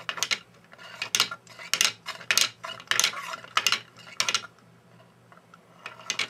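Plastic Geneva-type indexing mechanism turned by hand: the driving wheel's raised edge and slot knock against the pins of the four-point star wheel, making a string of sharp plastic clacks about every half second. They stop about four and a half seconds in, with one last clack near the end.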